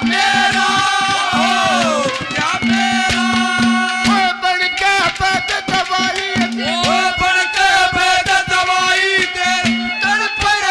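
Live Haryanvi ragni folk music: a harmonium playing held, sliding melody lines over a steady hand-drum rhythm.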